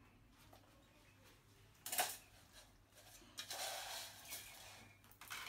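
A sharp clink about two seconds in, then scraping and rustling of hard objects being handled.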